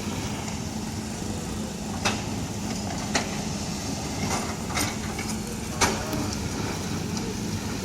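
A heavy engine running steadily at a road-works site, with a few sharp knocks or clanks now and then.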